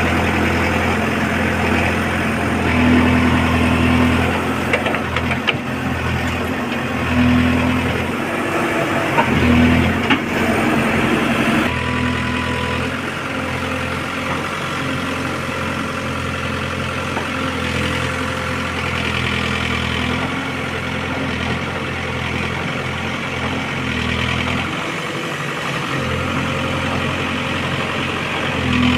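Case 851EX backhoe loader's diesel engine running while its backhoe arm digs, the engine note swelling several times in the first twelve seconds as the hydraulics take load, then running steadier. A few knocks from the bucket striking the soil come between about five and ten seconds in.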